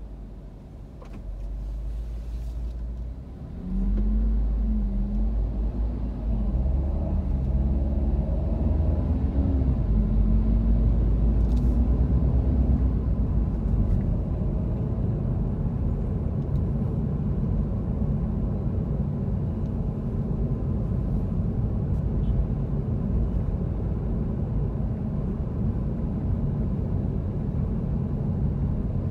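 A car pulling away from a standstill, heard from inside the cabin: the low rumble grows louder about four seconds in, with a wavering engine note for several seconds as it gets under way, then settles into a steady drone of engine and road noise.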